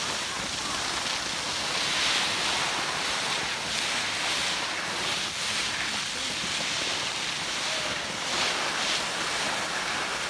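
Steady hiss of skis sliding over packed snow, swelling and easing slightly.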